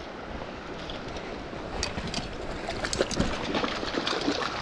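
A hooked trout splashing at the surface of a shallow stream as it is drawn to a landing net, over the stream's steady flow. The splashes come more often and louder in the second half.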